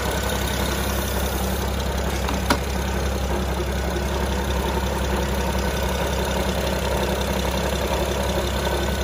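BMW 135i engine idling steadily with a weird noise in it, with a single click about two and a half seconds in. The owners think the noise could possibly be a damaged power steering pump bearing, after the pump came loose and its belt came off twice.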